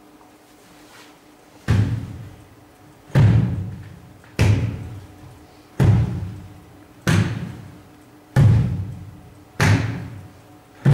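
A slow, even beat of heavy drum-like hits, about one every 1.3 seconds, each with a sharp attack and a ringing tail, starting a couple of seconds in.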